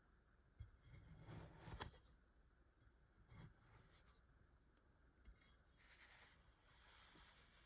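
Faint scraping and crumbling of kinetic sand being cut and scraped with a metal tool, a circular saw blade or cheese grater. There are soft passes about a second in, with a small click near 2 seconds, a brief one a little later, and a longer one near the end.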